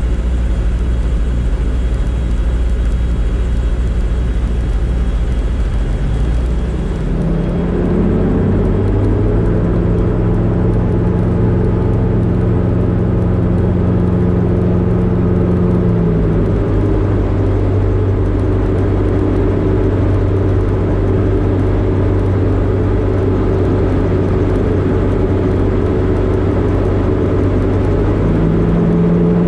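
Light aircraft's engine and propeller droning steadily, heard from inside the cockpit. The engine note steps up about a quarter of the way in, shifts again about halfway through, and rises once more near the end.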